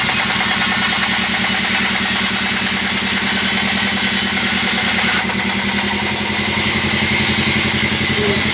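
Band sawmill machine running steadily with a low, even engine-like drone; about five seconds in, the high hiss drops away while the running continues.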